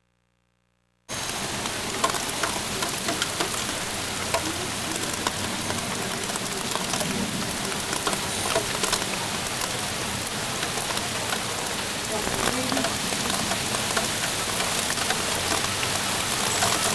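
Rain falling steadily, with the patter of many small drops landing close by; it cuts in abruptly about a second in.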